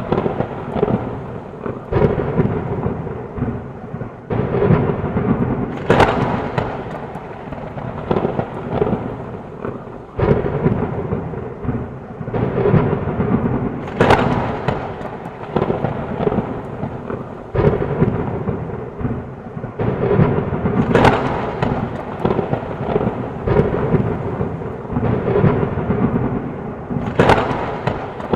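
Thunderstorm with rain falling steadily under a continuous low thunder rumble, and sharp thunder cracks breaking out every few seconds.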